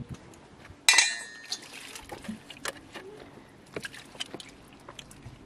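A metal dish clanks once with a brief ring about a second in, followed by light knocks and clicks of kitchenware and plastic water containers being handled.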